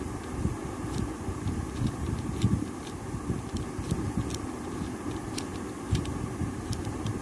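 Plastic tiles of a 15-number sliding puzzle being pushed along their track, giving a dozen or so light, irregular clicks. A steady low background rumble runs underneath.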